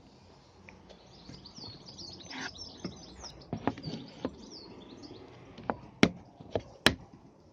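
Small birds chirping, with a series of sharp knocks in the second half, the loudest two near the end, as a plywood jig plate is handled and set down on an MDF worktop.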